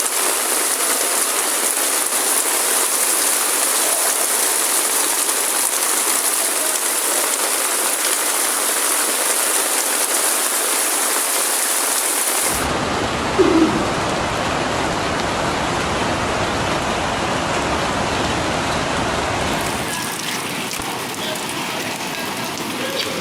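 Heavy rain pouring down, a steady dense hiss. About halfway through the sound changes abruptly and turns deeper, and a second or so later comes one brief louder sound.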